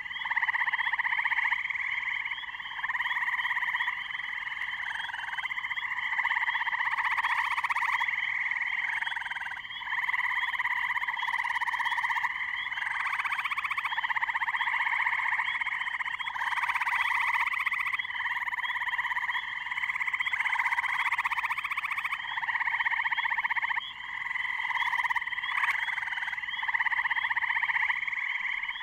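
Dense pond chorus of tree frogs, spring peepers among them, calling without a break, many voices overlapping.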